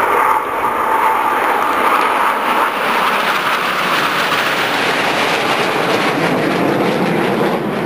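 Jet engines of a formation of Aermacchi MB-339 jet trainers passing overhead: a steady jet noise that deepens somewhat in the second half.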